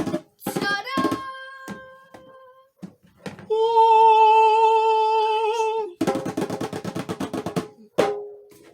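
A reveal fanfare after a drum roll: a few drum hits, then a loud sung note held steady for about two and a half seconds, followed by a fast drum roll and a final hit that rings briefly.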